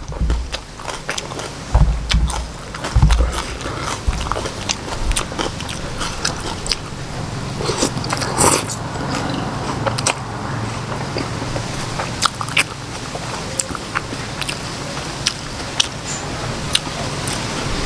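Close-up eating sounds: a person chewing and biting octopus and Khmer rice noodles, with many small wet clicks and smacks throughout. A few low thumps come in the first three seconds, and a longer, louder slurp of noodles comes about eight and a half seconds in.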